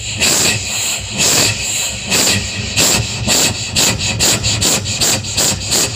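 A man's vocal imitation of a steam locomotive pulling away, breathy rhythmic chuffs into a microphone over a PA. The chuffs speed up from about two a second to about three a second.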